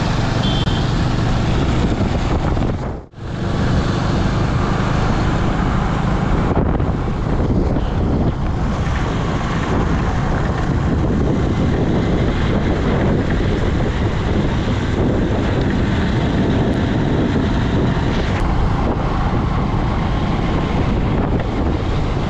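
Wind buffeting the microphone over a motorcycle engine running steadily while riding. The sound briefly drops out about three seconds in.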